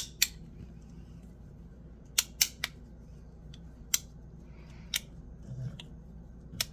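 Magnetic bean slider fidget being slid back and forth, its top half snapping onto the magnets in the metal base: about eight sharp clicks at irregular intervals, a few in quick pairs.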